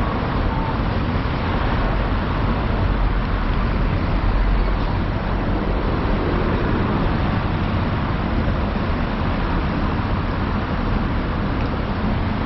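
Steady low rumble of vehicle noise with no single event standing out.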